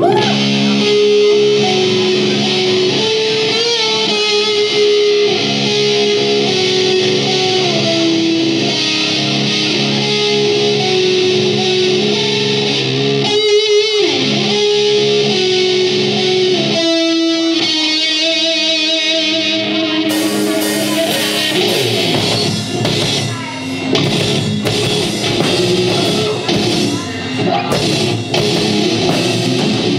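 A live metal band opening a song: an electric guitar plays a slow melodic line alone. After about twenty seconds drums and bass come in and the full band plays.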